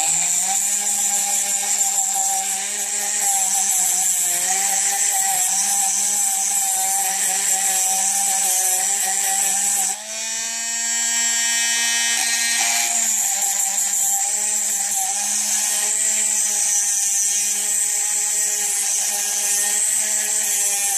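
Dremel rotary tool running at a steady high-speed whine, its bit turning inside a lampwork bead's hole to clear out bead release. The whine falters briefly about halfway through, then picks back up.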